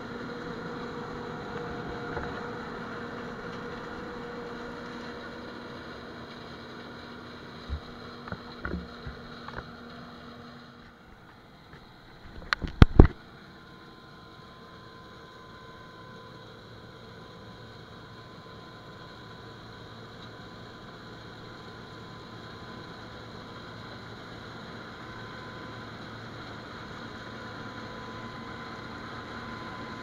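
John Deere 9410 combine running steadily while harvesting soybeans, a constant machine hum with held tones. A little before halfway through the sound dips and a short cluster of loud knocks stands out, then the steady hum carries on.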